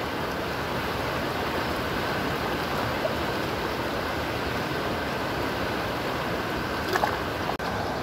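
Shallow river rushing over rocks in small rapids: a steady, even wash of running water, with a couple of light clicks near the end.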